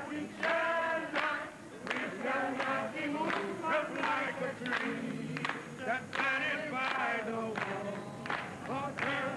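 A crowd of many voices singing together, loud and continuous, with the voices overlapping.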